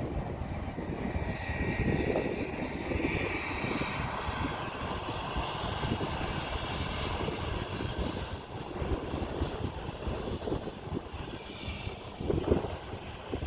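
Large harvest machinery running steadily, a deep engine drone with a faint mechanical whine over it, with wind buffeting the microphone near the end.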